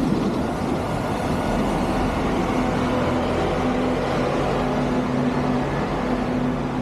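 A vehicle engine running steadily: a low drone with a constant hum over a noisy background.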